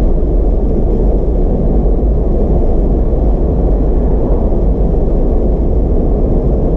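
Steady low rumble of a Mazda MX-5 RF cruising on the road, heard from inside the cabin: tyre roar and engine noise together.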